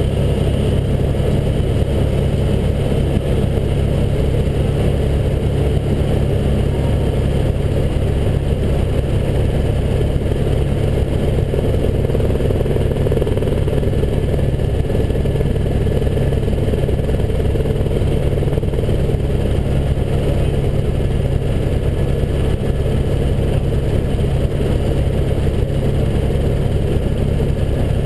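Helicopter in flight heard from inside the cabin: the rotor and engine run steadily, a constant loud low drone with faint steady high tones above it.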